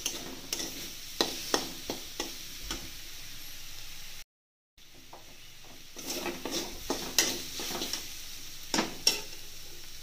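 Chopped amaranth greens sizzling as they fry in a metal kadhai, with a spatula stirring and scraping against the pan in irregular clicks and scrapes. The sound cuts out for about half a second a little past the midpoint.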